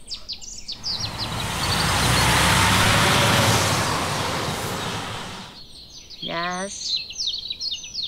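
A tractor-trailer pulling a bulk tanker trailer drives past: the engine and tyre noise swells over a couple of seconds, then fades away. Birds chirp before and after it.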